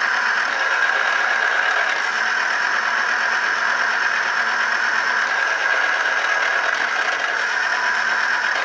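Small 2.5-cup electric citrus juicer running, its motor spinning the reamer cone against a large lemon half pressed down onto it: a steady, even motor whir.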